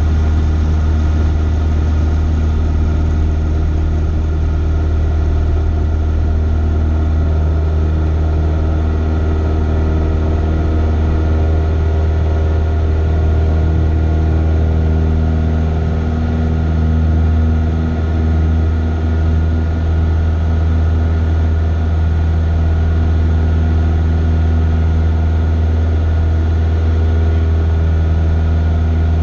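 Cessna 172's piston engine and propeller droning steadily, heard from inside the cockpit.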